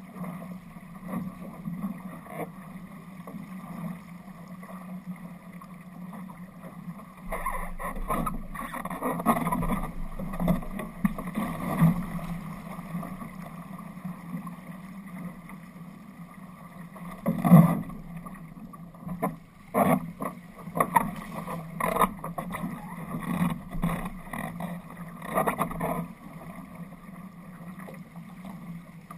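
Water rushing and splashing against the hull of an RS Aero sailing dinghy running downwind, with irregular louder slaps of waves and spray from about a quarter of the way in, the loudest a little past halfway.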